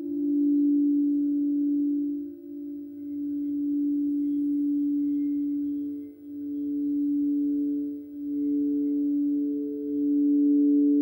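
Frosted quartz crystal singing bowls played with mallets. The large sacral bowl holds a steady low tone that swells and dips slowly, and about halfway through the higher tone of the smaller throat chakra bowl joins it.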